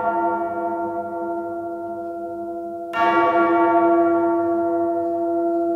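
A deep bell tolling as the opening of a music track: it rings on from a stroke just before, is struck again about three seconds in, and each stroke slowly dies away.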